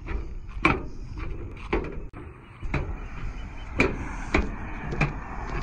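Footsteps of a person in clogs walking down a dock gangway ramp and onto the dock: about six separate knocks, roughly one a second.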